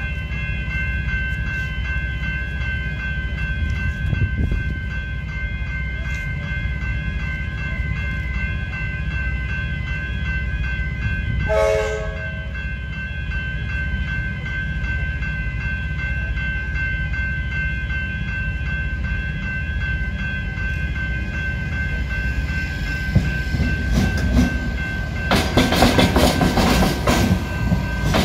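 Level crossing bells ringing steadily with the boom gates down. A short train horn blast sounds about twelve seconds in. In the last few seconds an electric suburban train comes through the crossing loudly, its wheels clattering over the rails.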